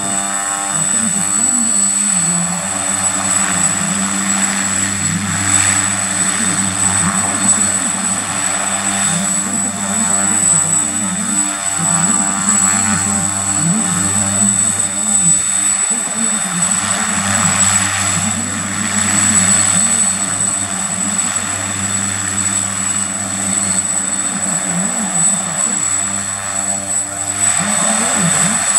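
The two Turbomeca Astazou turboprop engines of an FMA IA-58 Pucará running with the aircraft standing still: a steady high turbine whine over the wavering drone of both propellers.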